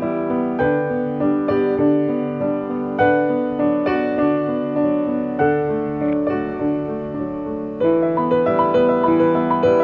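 Background piano music: notes and chords struck one after another, each dying away.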